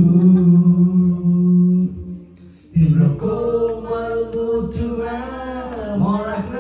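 Two men singing together into handheld microphones: a long held note, a short break a little after two seconds in, then the singing goes on with wavering pitch.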